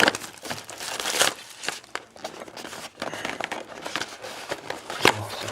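Plastic wrapping of a trading-card box and pack crinkling and tearing as it is cut open and handled, with many small crackles and a sharper click about five seconds in.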